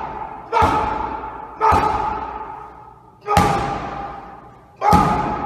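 Punches landing on a hand-held strike pad, four hard hits spaced a second or more apart, each leaving a long ringing decay.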